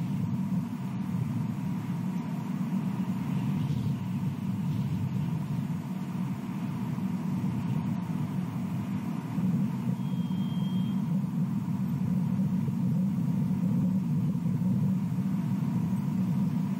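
Steady low rumble, with a brief thin high tone about ten seconds in.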